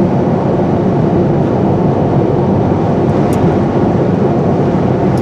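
Steady road and engine noise inside a moving car's cabin, a constant low rumble without breaks.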